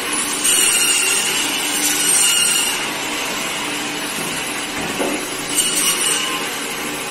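Electric meat bandsaw running and cutting a whole chicken into pieces, flesh and bone. The blade drive runs steadily, and it grows louder as the blade bites through the bird, once from about half a second in to nearly three seconds and again around six seconds.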